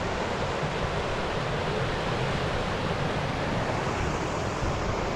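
Shallow upland river rushing steadily over rocks in small white-water rapids, a constant even rush with no breaks.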